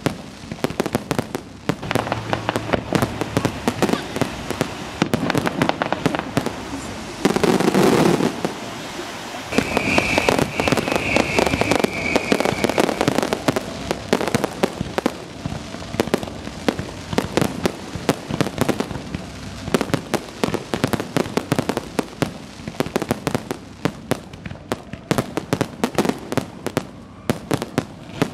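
Aerial fireworks display: a dense, irregular string of bangs and crackling shell bursts, with a louder stretch about seven seconds in and a high whistle lasting a few seconds about ten seconds in.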